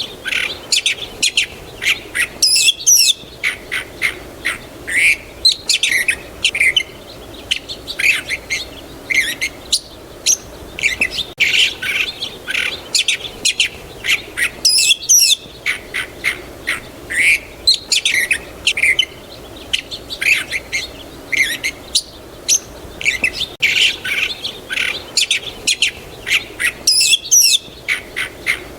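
Birds chirping and twittering, several short calls a second over a faint steady background hiss. The same stretch of birdsong comes round about every twelve seconds, a looped recording.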